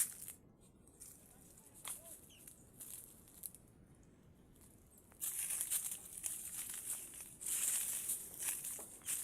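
Rustling and crinkling noise, sparse at first with a few sharp clicks, then much louder and denser from about five seconds in.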